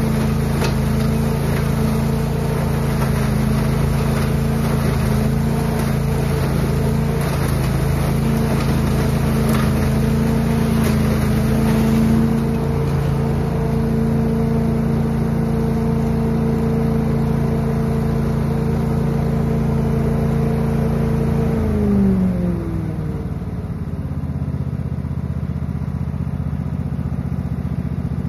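Billy Goat truck-loader leaf vacuum running at full throttle, a loud steady engine drone with leaves and debris rattling through the hose and fan in the first half. About 22 seconds in the engine is throttled down and its pitch falls to a lower, quieter idle.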